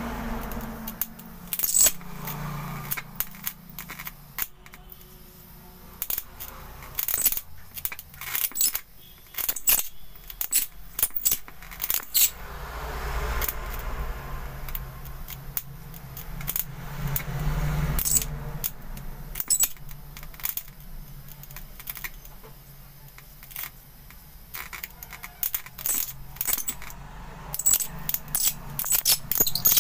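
High-voltage sparks from a CRT television's EHT supply jumping to a hand-held wire: irregular sharp snapping cracks, coming in clusters over a low hum. The arcing is being used to rejuvenate a weak picture tube without a tube charger.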